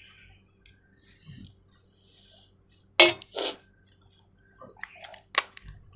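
Crisp pani puri shells cracking and crunching: one sharp crack about three seconds in, a short crunch right after it, then a run of small clicks and crackles near the end.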